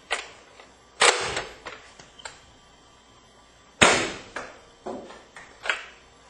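A spring-powered Nerf Recon CS-6 dart blaster being primed and fired: several sharp clacks and snaps, the two loudest about one second and nearly four seconds in.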